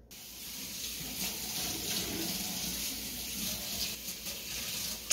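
Steady rush of water running from a tap, with a short knock near the end.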